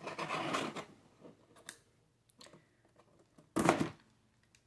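Scissor blade slitting the packing tape on a cardboard box: a scraping slice in the first second, a few small scrapes and clicks, then a louder short tearing sound about three and a half seconds in.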